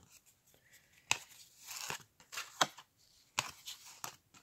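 Stack of cardboard basketball trading cards being flipped through by hand, a card slid off the pile every second or so with a short, sharp snap and a papery swish between.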